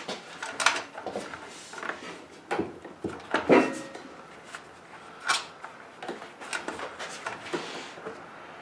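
Irregular clicks, knocks and clatter of hand tools and parts being handled while a push mower's top is taken apart, with the loudest knock about three and a half seconds in. The engine is not running.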